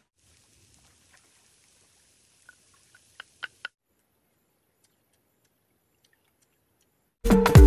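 A faint steady high hiss with a few soft clicks, which cuts off abruptly. After a few seconds of near silence, loud electronic music with a beat starts suddenly near the end.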